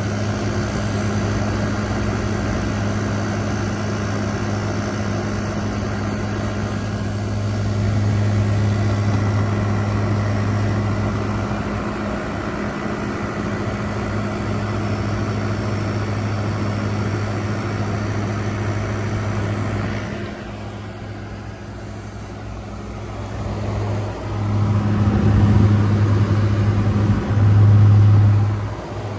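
A 2023 General Electric 5,000 BTU window air conditioner running on high cool: a steady, deep compressor hum under the fan. The hum drops off about two-thirds of the way through, then swells louder near the end.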